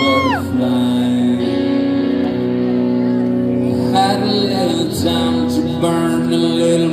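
Live band playing a song intro, with sustained guitar chords ringing. A high whoop sounds right at the start.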